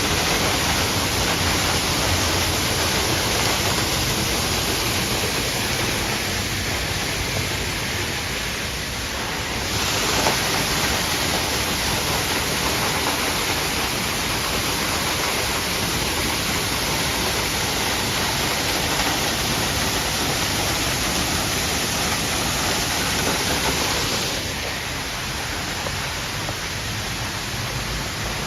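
Waterfall rushing: a steady, loud hiss of falling water that grows brighter about a third of the way in and softens again near the end.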